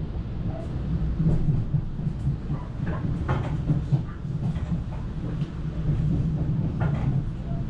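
Metro-North commuter train running, heard from inside the passenger car: a steady low rumble with scattered clicks and knocks from the wheels on the track.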